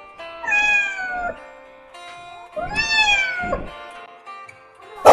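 A cat gives two drawn-out meows, each about a second long and falling in pitch: a defensive yowl at the dogs facing it. A dog gives one loud, sharp bark right at the end, over background music.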